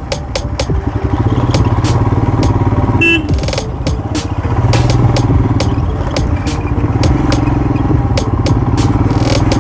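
Motorcycle engine running steadily under way, with frequent short knocks from the ride and a brief beep about three seconds in.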